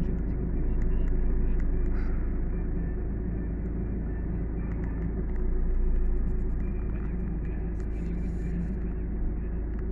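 Vehicle engine and road noise heard from inside the cab: a steady low rumble that swells slightly about a second in and again around six seconds.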